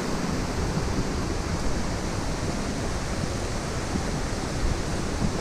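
Steady rush of a mountain stream, an even noise that does not change.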